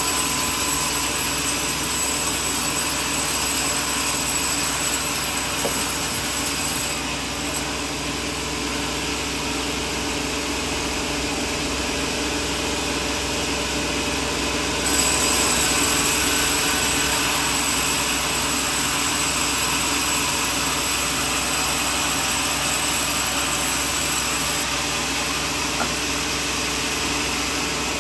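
Sawmill running, its saw cutting coconut wood with a steady mechanical drone and a high hiss. The level drops abruptly about 7 seconds in, jumps back up about 15 seconds in, and drops again near 25 seconds.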